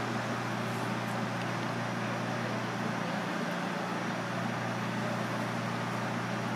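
Steady low machine hum with an even background hiss, unchanging throughout.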